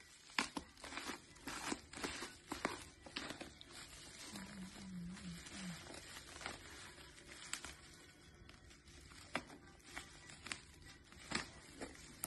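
Scissors snipping through the plastic and bubble-wrap packaging of a parcel, the wrap crinkling as it is cut and handled, in many sharp, irregular snips and crackles.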